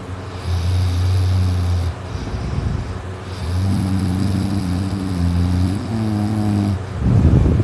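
A person snoring in their sleep: two long, droning snores with a thin high whistle over them. Then a shorter, louder, rough snort about seven seconds in.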